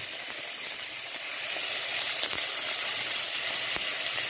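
Seasoned oxtail pieces sizzling steadily as they sear in a little hot oil in a pot on medium-high heat, with a few faint pops.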